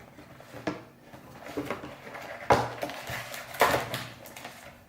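Trading card packaging being handled: rustling and crinkling, with two louder sharp snaps about two and a half and three and a half seconds in.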